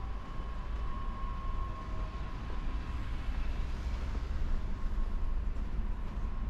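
City street traffic: a steady low rumble of passing vehicles, with a faint steady whine that fades about two seconds in.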